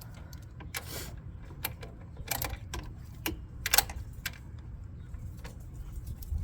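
Irregular metallic clicks and clinks of a wrench working the nut on the alternator's rear terminal post, which spins with the nut instead of the nut coming loose.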